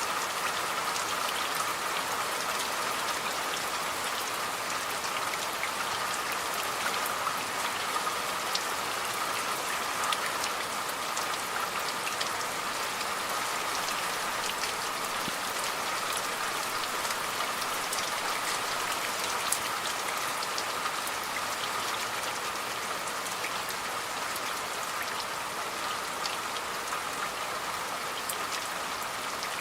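Steady rain falling, with many separate drops ticking on a surface through an even hiss.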